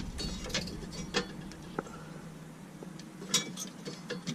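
A few scattered clicks and light knocks of hand tools and mounting parts being handled during the brake light install. The sharpest click comes about three and a half seconds in.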